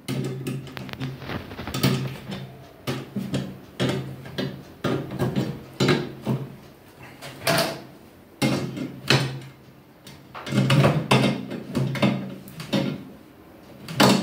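Steel pliers gripping and turning nuts on the bolted joints of a powder-coated steel-tube chair frame: irregular metal clicks, scrapes and knocks, with the tubular frame rattling as it is worked and handled.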